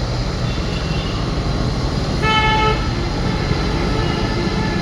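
Steady road traffic rumble, with a vehicle horn honking once, briefly, about two seconds in.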